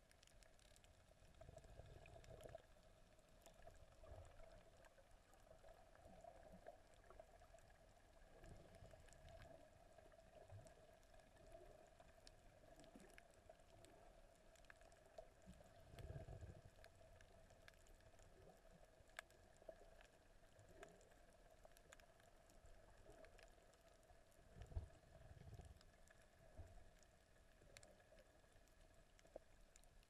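Near silence: faint muffled underwater sound picked up by a camera submerged on a coral reef, a steady low hum with scattered faint ticks and a few soft low thumps, the strongest about three-quarters of the way through.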